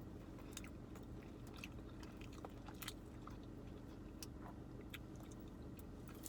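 A person chewing food close to the microphone, with scattered short, sharp clicks, over a faint steady low hum.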